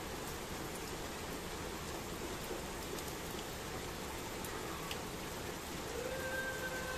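Steady rain falling on a wet paved street, with scattered ticks of single drops. A faint steady pitched tone comes in about six seconds in.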